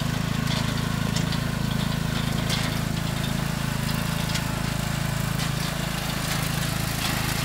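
Riding lawn mower's small engine running steadily as it drives across rough grass towing a loaded dump cart.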